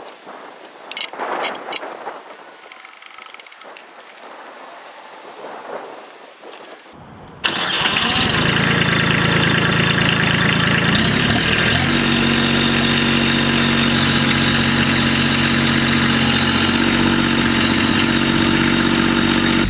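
Kubota tractor's diesel engine running steadily under the lift attempt. It comes in abruptly about seven seconds in and steps up in pitch a few seconds later. Before it come a few faint knocks and scuffs.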